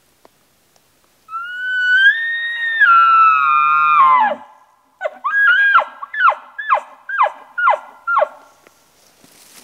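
Bull elk bugling: a whistle that rises, holds high, then drops into a low growl, followed by about eight short chuckles, roughly two a second.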